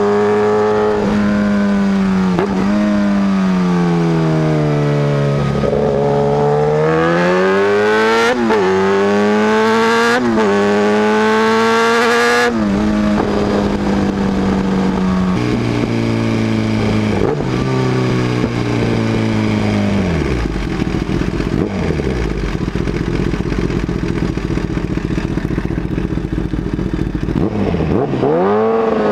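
Kawasaki ZX-10R inline-four through an SC Project aftermarket exhaust, revving up and dropping back again and again as the bike accelerates, shifts and slows, its note falling sharply at each shift. About two-thirds through, the engine settles to a low, uneven rumble at low revs for several seconds, then revs up again near the end.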